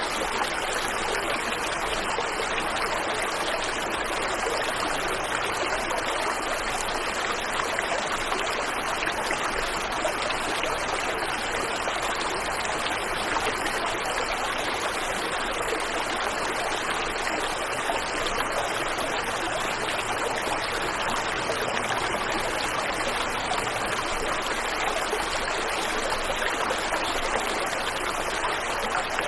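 Waterfall and river water rushing, a steady, even noise with no breaks or changes.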